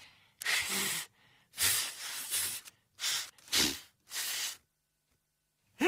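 About five short, breathy puffs of breath with no clear tone, blown into a paper and comb held to the mouth.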